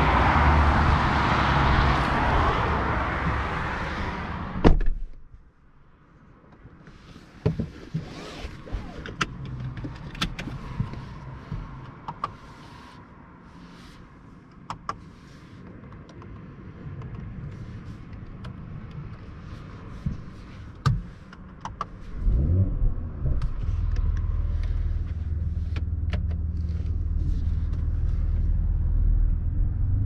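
Loud rushing outdoor noise that cuts off as the car door shuts with a solid thud about four and a half seconds in, then a quiet cabin with scattered clicks of buttons and controls. About twenty-two seconds in, the Mercedes-AMG GLE 53's 3.0-litre inline six-cylinder engine starts with a short rising rev and settles into a steady low idle.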